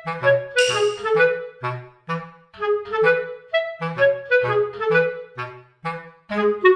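Upbeat background music: a woodwind-like melody of short, bouncy notes over a regular low bass line.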